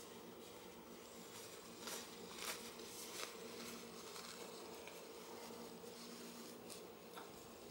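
Necktie fabric rustling in short soft swishes a few times as it is looped and pulled by hand, over a faint steady buzzing hum.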